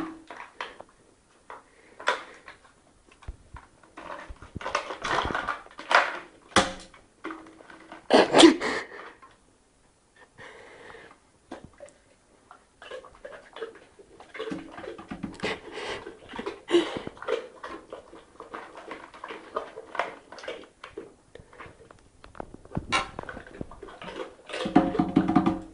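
A dog eating from a small plastic tub: irregular bursts of licking, smacking and chewing, loudest about eight seconds in.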